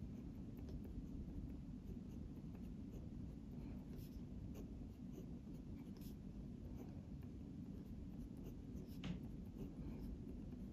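A pen writing on a paper worksheet: faint scratching with light taps of separate strokes, one a little sharper about nine seconds in.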